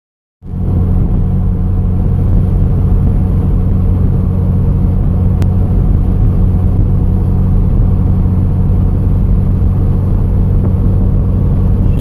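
A vehicle driving at highway speed, heard from inside the cabin: a loud, steady low rumble of engine and road noise.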